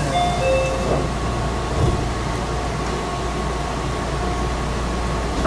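Two-note door chime on a Meitetsu 6000 series train, the notes alternating and ending about a second in, following the door-closing announcement. A single thud comes near two seconds in over the train's steady low hum.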